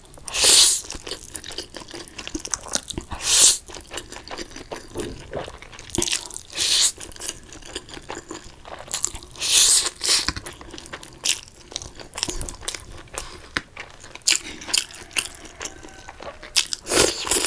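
Close-miked eating: crunching, biting and chewing with many small wet clicks, and a few louder noisy bursts spaced every few seconds.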